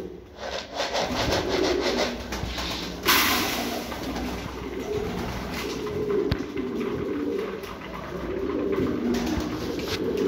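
Domestic pigeons cooing over and over, with sharp pecking clicks as they feed from a plastic tray. A brief loud rush of noise comes about three seconds in.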